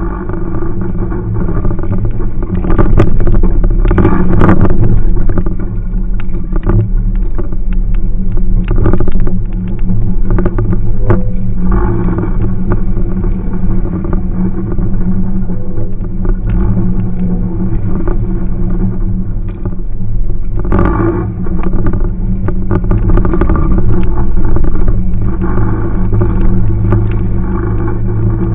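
Jeep Cherokee's engine running steadily as it drives a rough dirt trail, heard from inside the cab, with scattered knocks and rattles from the body over bumps. It grows louder a few seconds in and again about twenty seconds in.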